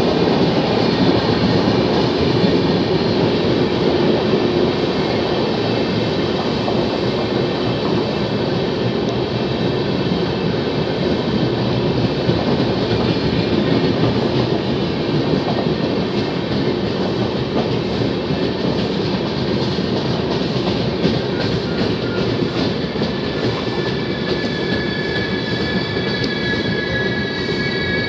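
Indian Railways LHB passenger coaches rolling past a platform, with a steady rumble and clatter of steel wheels on the rails. About three-quarters of the way through, high thin wheel-squeal tones come in over the clatter.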